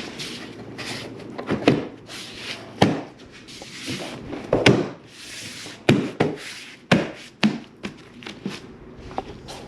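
Plastic windshield cowl panel being worked into place: plastic rubbing and scraping, with irregular sharp knocks and clicks as its retaining clips are pushed and tapped home.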